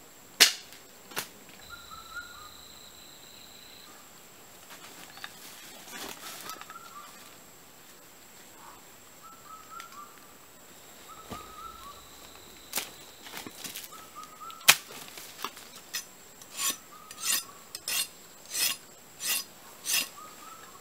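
Machete chopping at a branch: a run of about seven sharp, evenly spaced strokes in the last few seconds, after a few single snaps and knocks earlier on. Faint short chirping calls repeat in the background.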